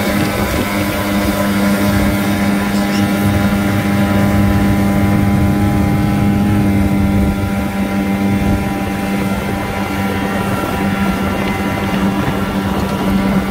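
1982 Evinrude 15 hp two-cylinder two-stroke outboard motor running at a steady cruising speed, pushing an inflatable boat along. Its pitch holds level throughout.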